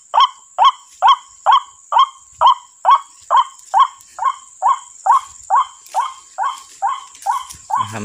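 White-breasted waterhen call played through a loud lure loudspeaker: an even, rapid run of short repeated notes, a little over two a second, easing slightly toward the end.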